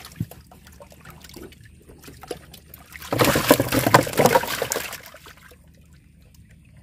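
Water splashing and trickling for about two seconds, starting about three seconds in, with a few faint knocks before it.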